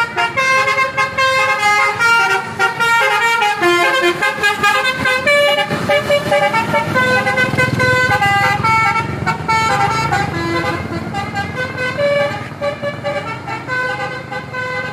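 Multi-tone 'telolet' air horn on an Indonesian intercity bus playing a rapid running melody of short, changing tones, over a low engine rumble.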